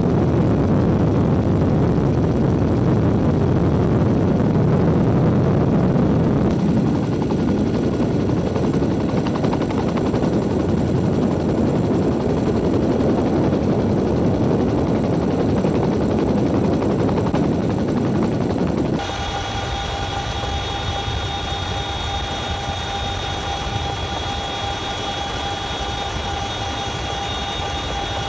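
Boeing CH-47 Chinook tandem-rotor helicopter in flight, heard close up: a loud, dense rumble of rotors and engines. About 19 seconds in, the sound shifts abruptly to a quieter helicopter noise with a steady high turbine whine.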